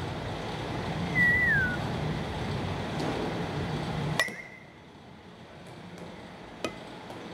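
Bat hitting a pitched softball: a sharp metallic ping with a brief ring about four seconds in, and a fainter knock from a second contact about two and a half seconds later. A short whistle-like tone that dips in pitch sounds about a second in, over a steady background noise that drops after the first hit.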